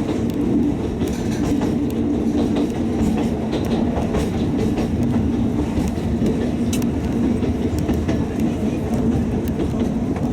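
Alishan Forest Railway narrow-gauge train running, its wheels clacking over rail joints now and then above a steady low drone.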